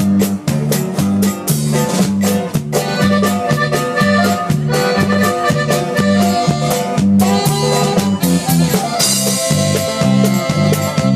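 Live norteño band playing an instrumental passage: accordion melody over strummed guitar, a bass line bouncing between notes on the beat, and a drum kit.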